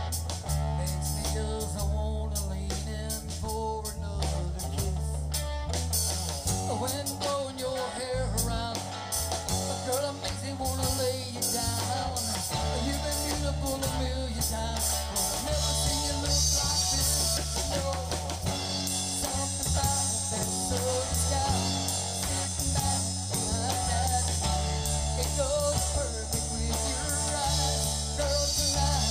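Live rock band playing: electric guitars over bass and drum kit.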